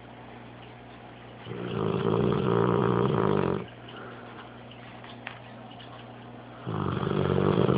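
Dog snoring: two long snores, each about two seconds, spaced about five seconds apart.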